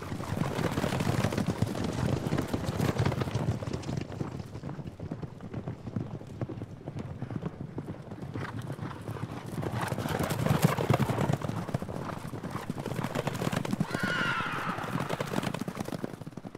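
Horse hoofbeats at a run, a dense stream of strikes that grows louder about ten seconds in. A horse whinnies once, about fourteen seconds in.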